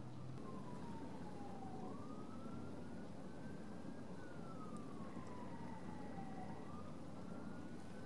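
Distant siren wailing, its pitch falling and rising slowly in long sweeps of a few seconds each, over a steady low rumble.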